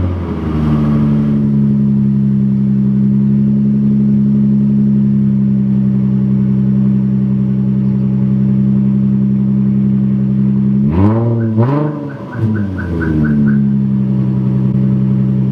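2003 Infiniti G35's 3.5-litre V6 idling steadily through a straight-piped exhaust, with a short blip of the throttle at the start and two quick revs about eleven seconds in.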